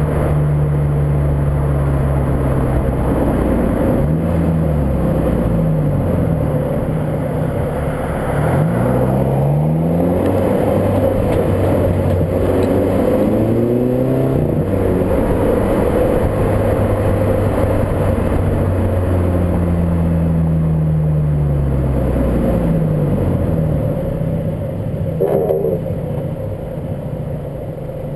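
Volkswagen Golf Mk5 GTI's turbocharged 2.0 litre engine heard while driving, its pitch rising and falling several times as the car speeds up and slows, over steady wind and road noise.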